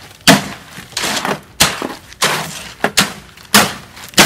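A long-handled tool's metal blade scraping and chopping through stiff, dry concrete in a steel wheelbarrow, in about seven rhythmic strokes. Sand has just been mixed in, making the mix stiffer.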